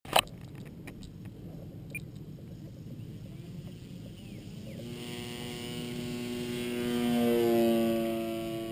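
Small electric RC P-51D Mustang model's motor and propeller: a steady whine swells in about halfway through as the plane takes off and comes close, loudest near the end, then drops slightly in pitch as it passes. A sharp click at the very start.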